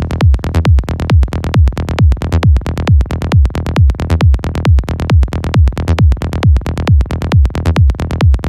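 Psychedelic trance track: a fast, driving electronic beat with a kick drum on every beat, a little over two beats a second, and short bass notes between the kicks.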